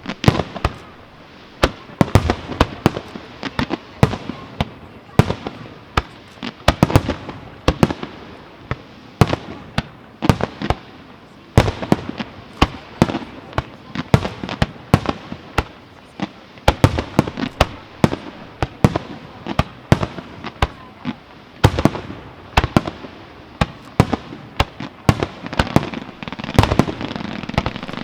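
Aerial fireworks display: firework shells bursting in a dense, irregular string of sharp bangs, often several a second, with no break.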